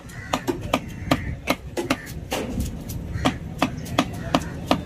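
A knife chopping a tuna loin into chunks on a wooden log chopping block: sharp, even chops at about three a second.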